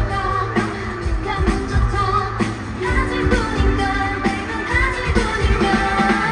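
Live K-pop girl-group performance: women singing over a steady pop beat through a stadium sound system.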